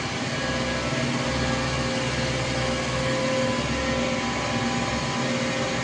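Danfoss H1P045 axial piston hydraulic pump running on a test bench: a steady machine hum with several held tones over a low rumble, under test after repair.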